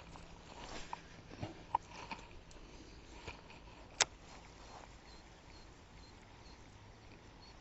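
Faint scattered clicks and light knocks of fishing gear being handled in a kayak, with one sharper click about four seconds in, then only faint background.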